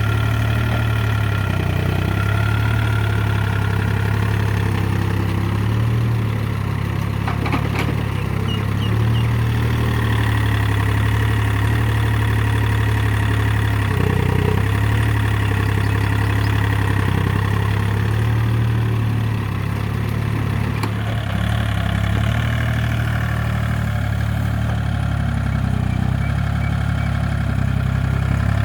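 Hitachi EX30 mini excavator's diesel engine running steadily while the machine works, its note shifting slightly in level and pitch. Two short sharp knocks cut through, about a quarter and three quarters of the way in.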